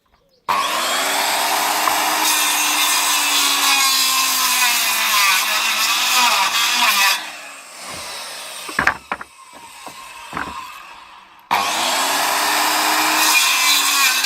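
A Makita 5704R 1200 W circular saw spins up and cuts through pallet wood, its motor pitch bending as the blade takes the load, then stops about seven seconds in. A few sharp knocks follow. The saw then starts up and cuts again for the last few seconds.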